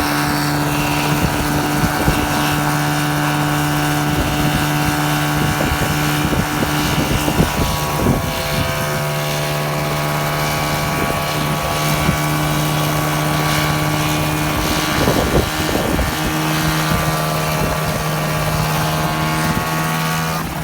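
Micron ultralight coaxial helicopter running, with its engine and rotors making a steady drone that holds one pitch throughout.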